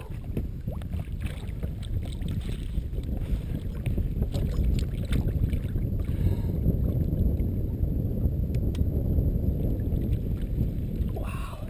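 Steady low rumble of wind buffeting the microphone on a small open boat, with a few faint clicks and taps.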